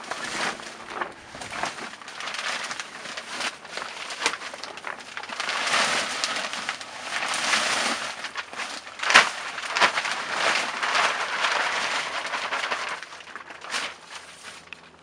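Composted horse manure pouring out of a plastic sack into a fabric grow bag: a rough rustling and crinkling of the sack and the falling manure, with one sharp knock about nine seconds in.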